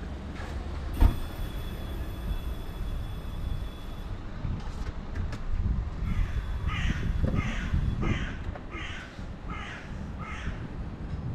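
A crow cawing about seven times in an even series, a little under two calls a second, starting about six and a half seconds in. Under it runs a steady low outdoor rumble, with a single knock about a second in.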